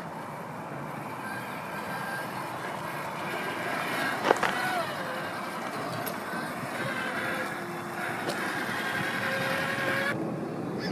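Axial SCX6 1/6-scale RC rock crawler's electric motor and geared drivetrain whining as it crawls over rock, the pitch shifting with the throttle. A sharp knock about four seconds in is the loudest moment.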